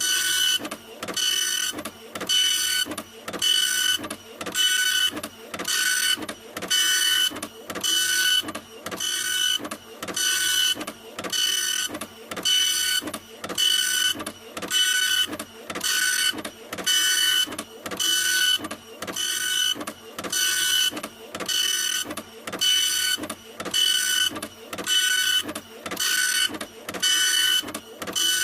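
Printer printing: the motor whine and rush of each pass repeat in an even rhythm, a little faster than once a second.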